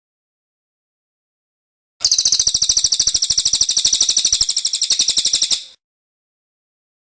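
A small songbird's rapid, high-pitched chattering trill of evenly repeated notes, lasting about three and a half seconds and starting about two seconds in, from a bird-song training recording.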